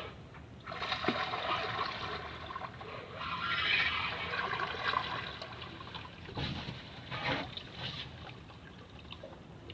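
Water trickling and splashing, swelling and fading, with a couple of light knocks about two-thirds of the way through.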